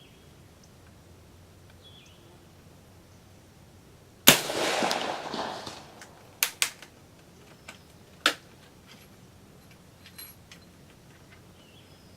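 A single rifle shot from a Springfield Model 1866 second Allin trapdoor conversion firing a smokeless .50-70 load, a sharp crack with a noisy tail that rings out for about a second and a half. About two seconds later come two sharp clicks close together, then one more. The shooter takes this shot for a malfunction.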